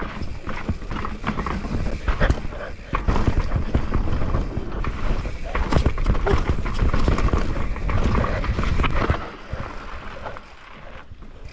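Mountain bike descending a rocky dirt trail, heard from the handlebars: tyres rolling and crunching over dirt and rock, the bike clattering over bumps, with wind rumble on the microphone. It quietens about nine seconds in.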